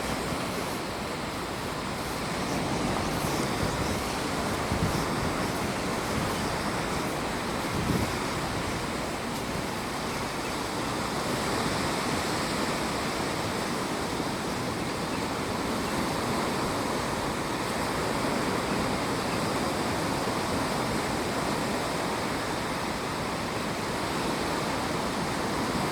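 Sea waves washing onto a shore: a steady rushing surf that swells and ebbs gently.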